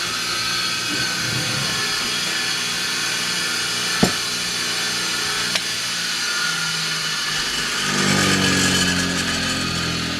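Electric wire wheel running steadily, brushing metal, with two sharp clicks about four and five and a half seconds in and a louder, lower-pitched stretch near the end.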